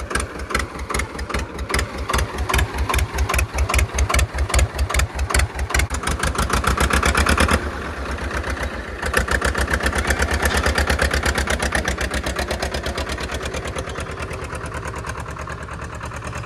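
Tractor diesel engine running with a loud, regular beat of firing strokes. The strokes quicken about six seconds in as the engine is revved and the tractor pulls away with its loaded trailer, then settle into steady running.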